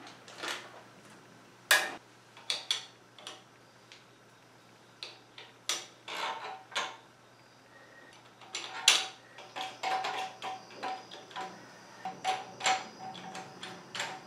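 Irregular clicks and knocks of plastic parts being handled: a Kohler Novita BH-90 bidet seat's plastic mounting plate and its bagged bolts set onto a porcelain toilet bowl and positioned. The loudest is a sharp knock about two seconds in.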